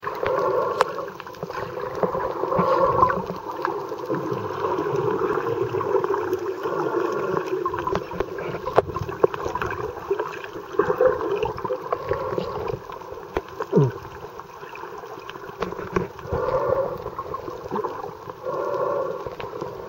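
Muffled underwater sound picked up by a camera in a waterproof housing: water movement and bubbles, with scattered sharp clicks and knocks.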